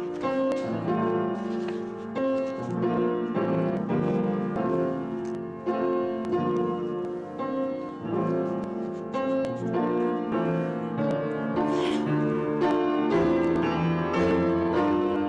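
Piano music: a flowing run of notes and chords with no pause.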